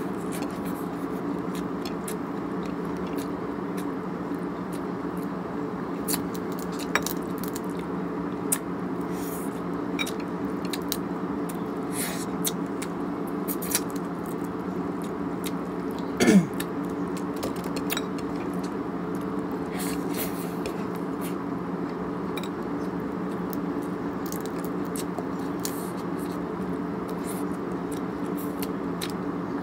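Eating crab by hand: scattered small clicks and crunches of crab shell being broken and picked apart, with chewing, over a steady background hum. About halfway through, one brief louder sound slides down in pitch.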